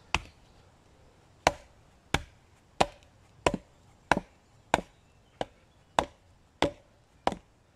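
A baton striking the spine of a bushcraft knife, driving it lengthwise into dry oak: about eleven sharp blows at a steady pace, roughly three every two seconds. The blade is working through a knot, under heavy strain.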